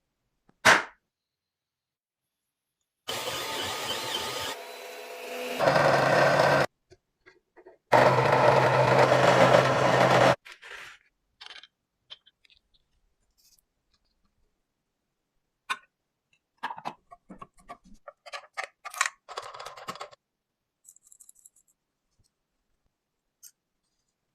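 A small electric motor, as on a workshop power tool, runs in two short bursts of a few seconds each, starting and stopping suddenly. Scattered clicks and scrapes of metal parts being handled follow.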